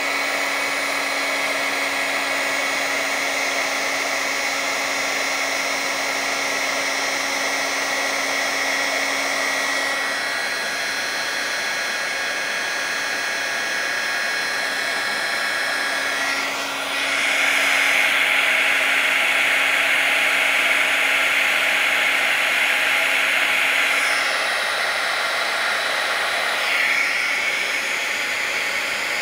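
Electric heat gun running steadily, a blowing fan whir with a whine, shrinking heat-shrink tubing over a wire. It grows louder a little past halfway and eases back a few seconds later.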